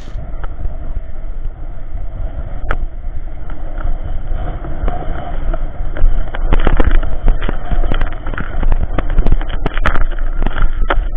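Inline skate wheels on K2 R100 frames rolling over rough asphalt, a continuous rumble with wind on the camera microphone. From about six seconds in, short knocks and clicks come thick and fast over the rolling.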